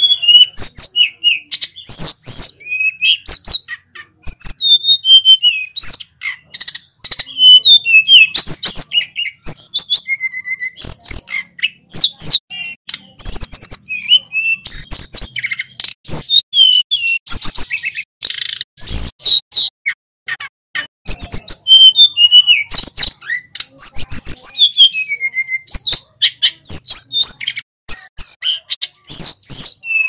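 Male sulingan gunung, a blue-and-orange flycatcher, singing almost without pause: a rapid run of varied high whistled phrases full of sweeping up-and-down slurs and quick trills, broken only by brief gaps.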